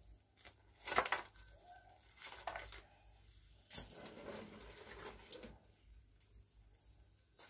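Boiled crayfish being lifted out of a pot: several short clatters and rustles of the hard shells and the pot, the loudest about a second in.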